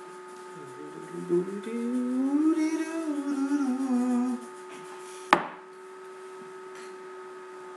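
A person humming for about three seconds, the pitch rising and then slowly falling, followed about a second later by one sharp click. A steady whine of a few fixed pitches runs underneath.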